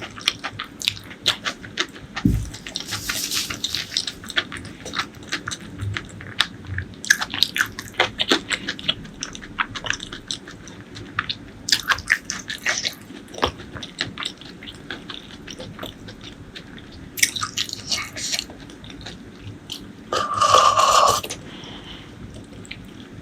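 Close-miked eating sounds: chewing with many short, sharp wet mouth clicks and smacks, and a louder, denser noise lasting about a second near the end.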